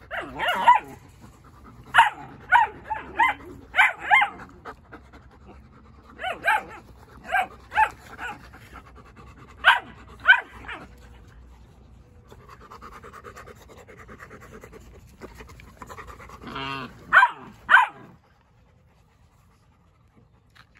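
Dogs barking in short bursts, often two or three in quick succession, with panting between; the barking stops about eighteen seconds in.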